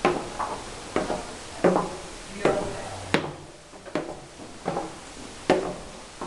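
Footsteps on a wooden floor at a steady walking pace, about one step every three-quarters of a second, each a dull knock with a short ring, with one sharper click about three seconds in.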